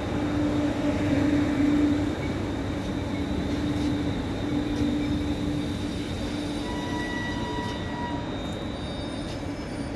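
London Northwestern Railway electric multiple-unit train running slowly into the platform, a steady whine from its motors easing as it slows. Thin high squeals come from the brakes or wheels from about six and a half to eight seconds in.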